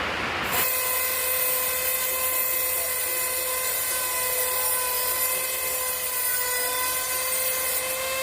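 High-speed grinder running with a steady high whine while working the metal of a truck wheel's safety ring, its bent teeth being cut or ground. It starts about half a second in, and its pitch rises slightly near the end.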